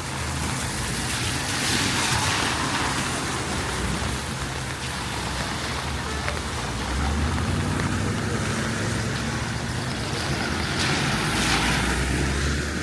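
Steady rain with vehicles passing on a wet street: tyre hiss swells about two seconds in and again near the end, with a low engine rumble building from midway.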